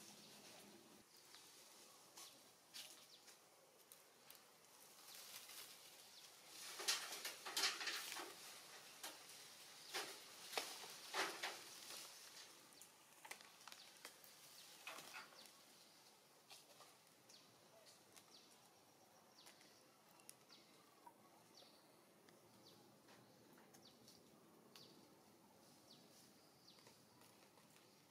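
Quiet outdoor background with a cluster of sharp clicks and knocks about seven to twelve seconds in, and a few fainter clicks afterwards.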